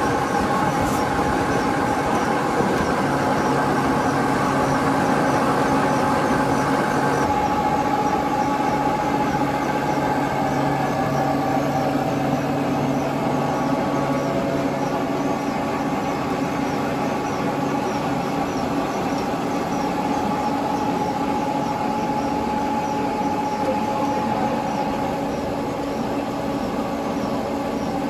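Pipe extrusion line running steadily: the motors and chain-track haul-off puller drawing an extruded plastic pipe give a continuous mechanical hum with a few steady whining tones. The low hum shifts slightly about seven seconds in.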